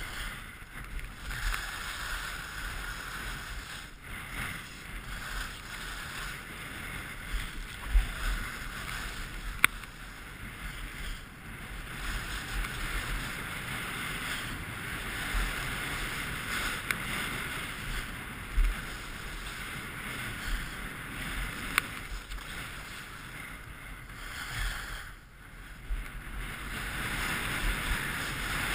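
Skis sliding and scraping over packed piste snow on a fast downhill run: a steady hiss that swells and dips, with wind rushing over the microphone.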